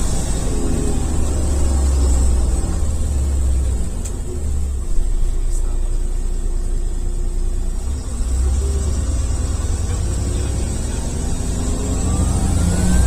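Iveco Urbanway bus's Tector diesel engine running, with its turbocharger whistle dying away at the start and rising again through the last few seconds as the engine pulls. A steady high whine sits above the engine, and there is one brief knock about five seconds in.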